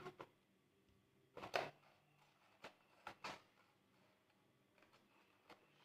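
A few brief, soft rustles and taps of folded paper letters and cardboard-tube letterboxes being handled on a tabletop. The loudest comes about a second and a half in.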